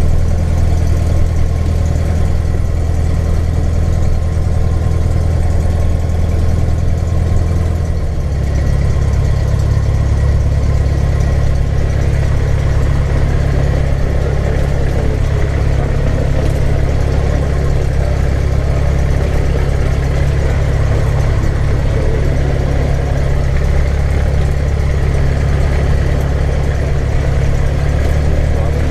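Cessna 150L's four-cylinder Continental O-200 engine and propeller running steadily at low power while taxiing, heard loud inside the cabin. The engine note shifts about eight seconds in.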